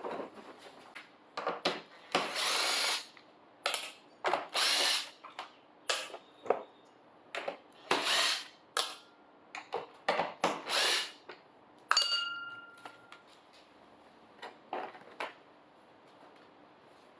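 Power drill running in short bursts, several times, backing out fasteners on a motorcycle's tail section. About twelve seconds in there is a sharp metallic clink with a brief ring, like a small metal part dropping.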